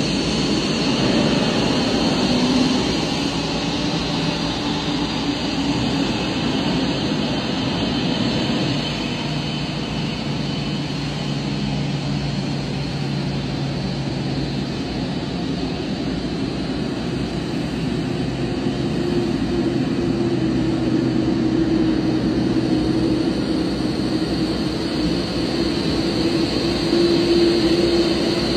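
Jet engines of a taxiing Boeing 787-9 Dreamliner running at low taxi power: a steady rushing whine with a low hum that grows stronger in the second half as the aircraft approaches.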